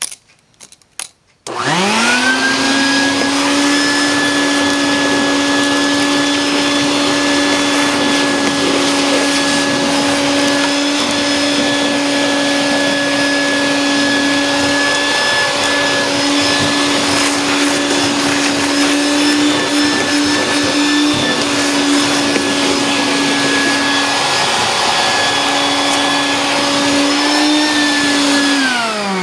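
A few light clicks, then a vacuum cleaner switched on about a second and a half in, spinning up with a quick rising whine and running steadily while carpet is vacuumed. Near the end it is switched off and the motor's pitch falls as it winds down.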